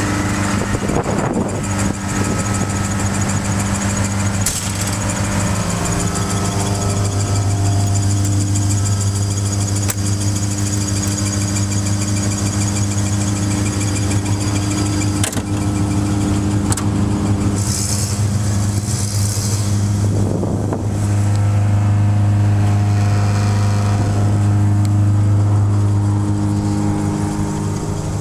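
Toyota Starlet's swapped 4A-GE twin-cam four-cylinder engine running at a steady high idle, a little louder in the last third. The high idle is something the owner plans to cure by adjusting the throttle body for the new throttle position sensor.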